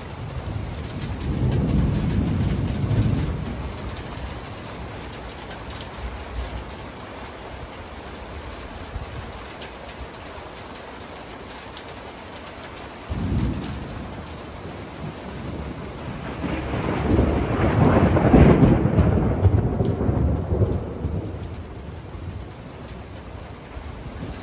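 Steady rain with thunder: a rumble a couple of seconds in, a sudden low clap about halfway through, then the loudest, long rolling peal that builds, peaks and fades over about six seconds near the end.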